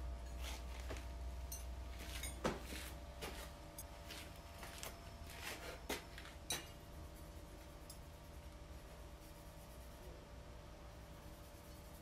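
Glazed ceramic pieces clinking and knocking as they are set onto refractory kiln shelves during kiln loading: a run of light clicks in the first half, the loudest about two and a half seconds in and two more near six seconds, then only faint handling sounds.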